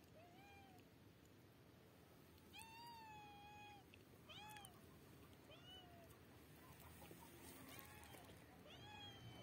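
A cat meowing repeatedly: about six separate meows, each rising and then falling in pitch. The longest is drawn out for about a second, roughly three seconds in.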